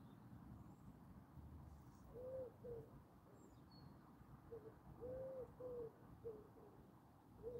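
Wood pigeon cooing faintly: a run of low, soft coos, some drawn out and some short, starting about two seconds in.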